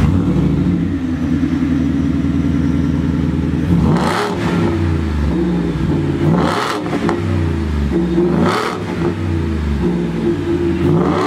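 Shelby F-150 Super Snake's Whipple-supercharged 5.0-litre V8, just started and heard through its Borla exhaust. It idles for about four seconds, then is revved in four short throttle blips roughly two seconds apart, the pitch rising and falling back to idle each time.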